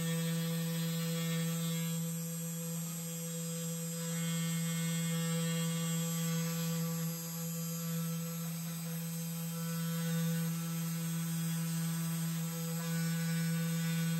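Spindle motor of a 3018 desktop CNC router running with a steady hum while its pointed engraving bit cuts into plywood.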